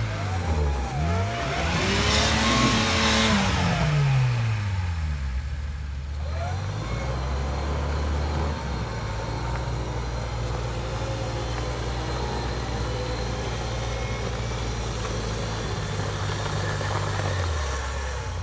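Off-road 4x4's engine revving up and down several times, then running at a steady speed for several seconds before dropping back near the end.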